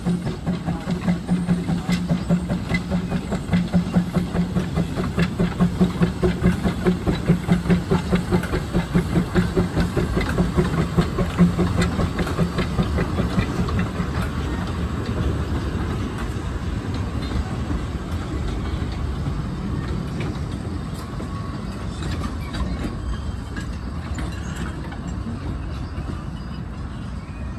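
Baldwin 4-6-0T narrow gauge steam tank locomotive working a rake of empty carriages, its exhaust beating in a steady rhythm. About halfway through, the beats give way to a steadier rumble of the train running that slowly grows quieter.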